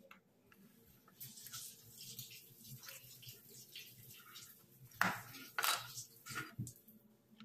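Kitchen knife cutting a lime on a plastic cutting board: soft handling noise, then a few sharp knocks of the blade against the board about five seconds in, the first the loudest.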